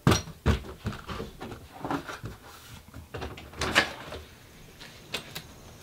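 Irregular knocks and clicks of a front door being handled and opened, with its latch and the blinds hung on it rattling.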